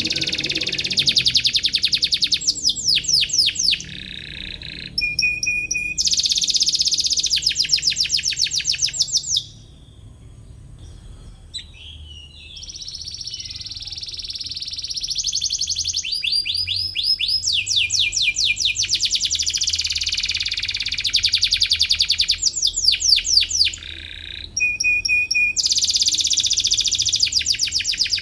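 Domestic canary singing vigorously in long, rapid trills: fast runs of repeated high notes in rolling phrases, broken by a short lull about ten seconds in before the song resumes.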